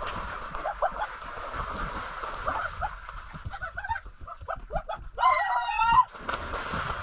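Birds calling: scattered short chirps, then one louder, longer call a little after five seconds in, over a steady background hiss.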